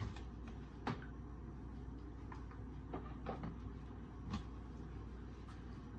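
Kitchen handling noises: a few light knocks and clicks, the sharpest about a second in and again just past four seconds, over a faint steady low hum.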